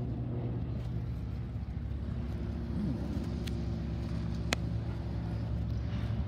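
A light propeller plane's piston engine idling, a steady low drone, with two faint clicks about a second apart around the middle.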